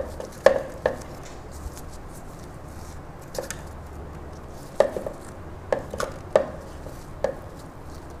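Fried potato wedges dropped one by one into an empty plastic food-processor bowl, landing as light knocks on the plastic and the metal blade, about nine at irregular intervals.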